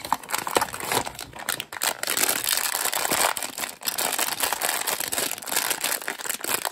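Silver foil blind-bag wrapper of a Tokidoki figure crinkling and crackling as hands scrunch and work it open. It starts with a few sharp clicks and rustles, then from about two seconds in the crinkling runs on continuously.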